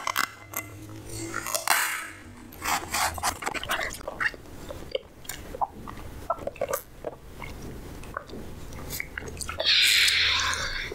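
Clinks, taps and rustles of dishes and food being handled at a table. Near the end comes a louder rustling noise lasting about a second.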